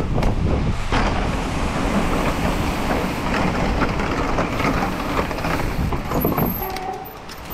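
Mountain bike rolling fast over the wooden planks of a footbridge, its tyres making a steady rapid clatter across the plank gaps.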